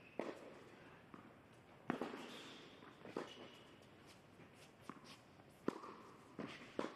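Tennis rally on an indoor hard court: about six sharp pops of the ball off the rackets and the court, spaced roughly a second apart, each ringing briefly in the hall.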